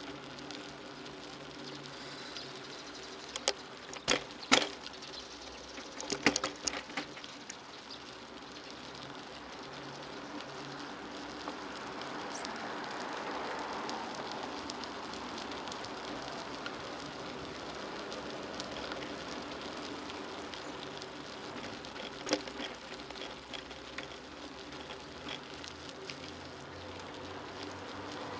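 Bicycle rolling along a cracked asphalt path with steady road noise, rattling and knocking sharply over bumps around four and six seconds in and once more near twenty-two seconds. The noise swells for several seconds in the middle.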